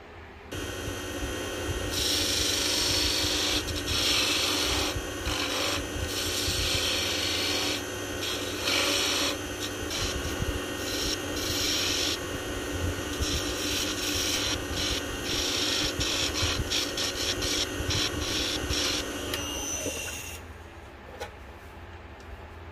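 Wood lathe starting up and running with an ebony blank spinning in the chuck, while a hand-held narrow chisel cuts into it in repeated scraping bursts. The lathe stops about twenty seconds in.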